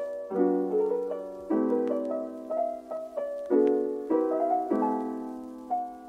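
Background music: a piano playing chords about once a second, each struck and left to ring and fade.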